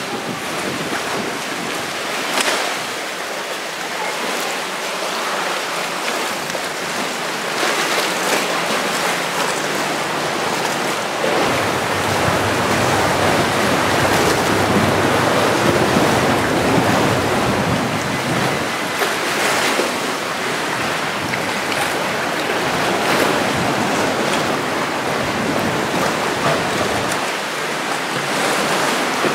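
Sea water sloshing and lapping against rock and the side of an inflatable boat: a steady rushing wash with a few sharper splashes. Wind buffets the microphone through the middle.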